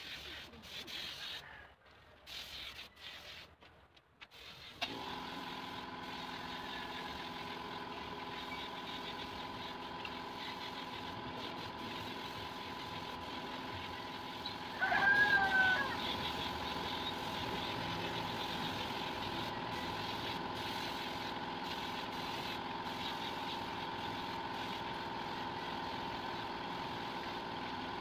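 An air compressor's motor kicks on about five seconds in and runs steadily, feeding the hose of a spray-paint gun. About fifteen seconds in, a brief louder sound with a bending pitch rises over it.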